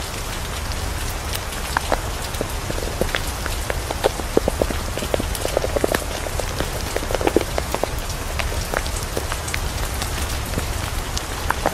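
Steady rain falling on a surface: a constant hiss dotted with many scattered drop ticks, over a low steady rumble.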